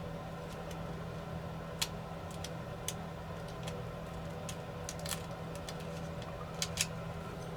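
Faint, scattered small clicks and ticks of a tool working at tape inside a small drone's plastic body, over a steady low hum.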